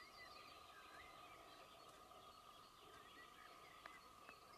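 Near silence with faint chirps of small birds, several short high calls, over a faint steady hum. A soft tick sounds about four seconds in.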